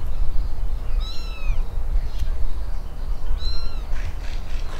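Kitten mewing twice, two short high-pitched mews a couple of seconds apart, over a steady low rumble.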